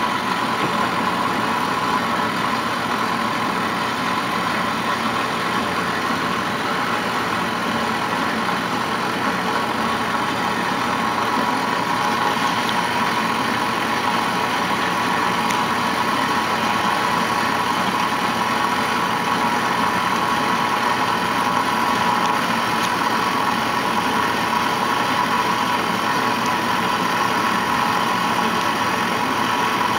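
Doall 16-inch vertical bandsaw running with its blade cutting through a workpiece: a steady, even machine sound with a held high tone.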